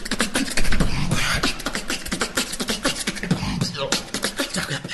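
Rubik's Cube being turned quickly, its plastic layers clicking and clacking in a dense, irregular run of sharp snaps.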